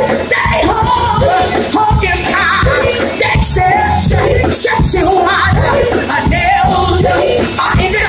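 Gospel music played loud in a church: voices singing over a steady drum and bass beat.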